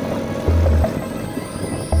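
Background music: deep bass notes with short plucked notes over them in a steady rhythm.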